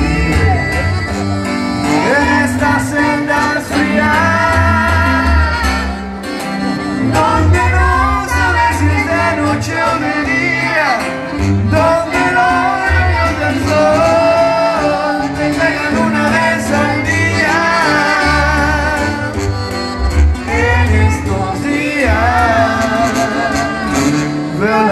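Live amplified Mexican regional song: a male lead singer sings through a microphone over guitar and a deep bass line, heard through the venue's PA.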